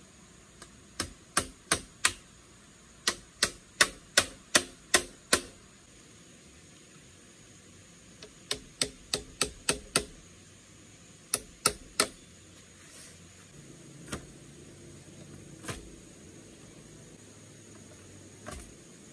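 Sharp knocks of a tool striking bamboo poles while a frame is built. They come in four quick runs of three to seven strokes, about three a second, with pauses between runs, then only a few faint thumps near the end.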